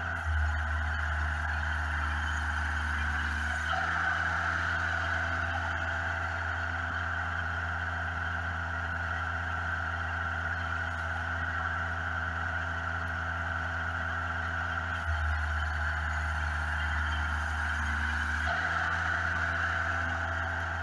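Portable band sawmill running: its engine hums steadily while the band blade cuts along a squared log. The balance of the sound shifts abruptly a few times.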